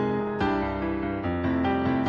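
Background music with piano notes struck at a steady pace.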